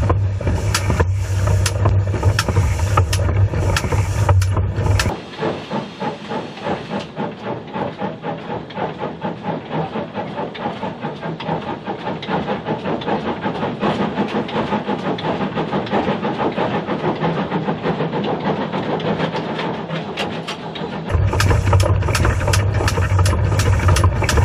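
Great Western pannier tank steam locomotive working: hissing steam with a quick, even beat of exhaust through the middle, which speeds up slightly. A heavy low rumble with sharp knocks fills the first five seconds and returns near the end.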